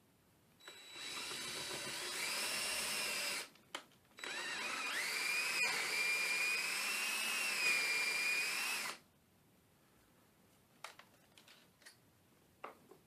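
Electric drill with a 29/64-inch bit boring out a tailpiece bushing hole in a guitar body, in two runs of about three and five seconds with a short pause between. A few light clicks near the end.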